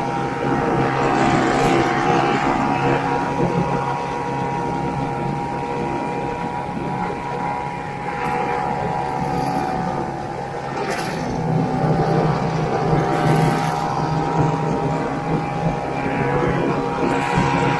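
1969 Ski-Doo Olympique's 320cc single-cylinder two-stroke engine running steadily as the snowmobile travels along the trail, getting louder a couple of times as it is throttled up.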